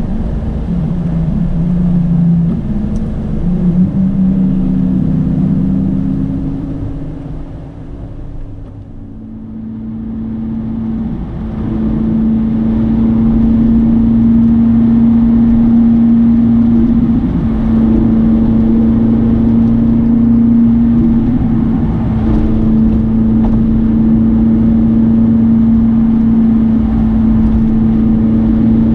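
Ferrari 458 Italia's V8 engine heard from inside the cabin, its pitch shifting up and down with the throttle for the first few seconds. The sound dips and fades back up about eight to ten seconds in, then settles into a steady cruising drone.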